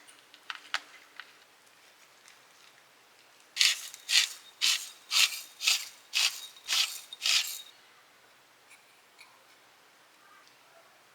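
Eight quick rasping cutting strokes, about two a second, from food being cut during kitchen prep, after a few light clicks.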